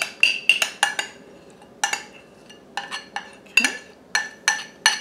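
Metal spoon scraping and tapping against the inside of a glass mixing bowl as batter is scraped out. It makes a run of irregular sharp clinks, each with a short ring.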